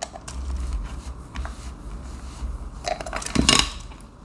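Small hard clicks and scrapes of a screwdriver working a tight screw into a plastic toy robot's battery cover, over the low rumble of handling, with a louder clatter about three and a half seconds in.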